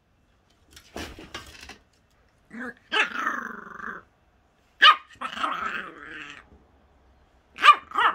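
Jack Russell terrier puppy barking and growling in play: sharp high yaps that run into longer growls, with two quick yaps near the end.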